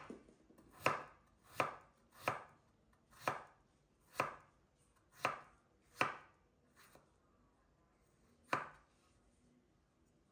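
Chef's knife slicing raw potato on a wooden cutting board, each cut ending in a knock of the blade on the board. About nine separate cuts, roughly one a second, with a pause before a last cut near the end.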